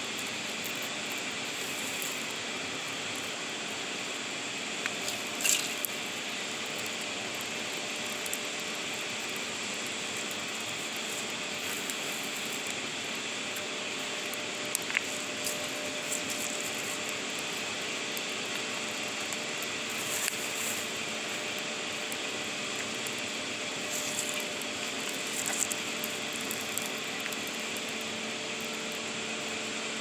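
Fire burning in a metal fire pit, giving off a few sharp crackles and pops, the loudest about five seconds in, over a steady rushing hiss with a faint hum.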